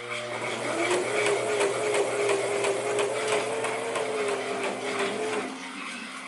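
Electric sewing machine running while stitching fabric, with rapid needle ticks. The motor speeds up in the first second, runs at a steady speed, then stops near the end.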